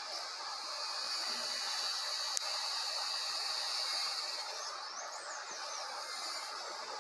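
Outdoor nature ambience: a steady high-pitched hiss, with a single sharp click about two seconds in and a few quick chirps about five seconds in.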